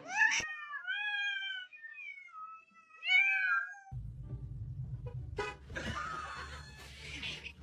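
A cat meowing: two long, drawn-out meows that slide in pitch. After about four seconds they give way to a steady low hum.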